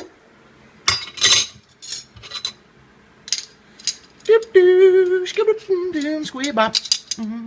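Metal clinks and taps as the garbage disposal's mounting-assembly rings are handled and pushed up under the sink drain flange. About halfway through, a man's voice comes in, drawn out on a few held, wavering notes for about three seconds.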